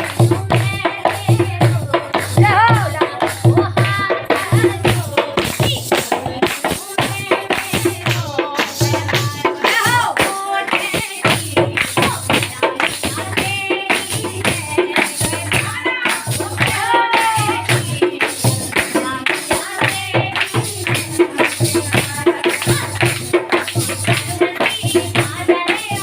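Kumaoni devotional folk song accompaniment: a steady drum beat about twice a second with tambourine-like jingles under a wavering melody line.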